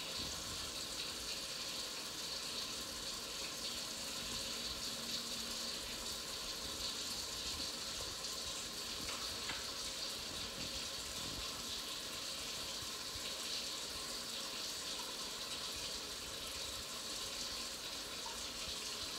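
Steady hiss of food cooking in a pan on the stovetop, even and unbroken.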